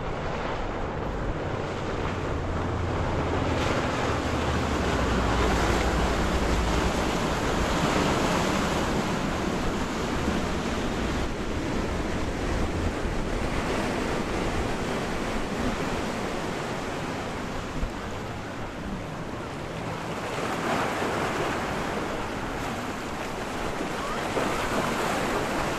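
Water rushing from the inlet's waves and the wake of an 80-foot Viking sportfishing yacht running past at speed, with wind buffeting the microphone. A low rumble is heavier from about two to seven seconds in.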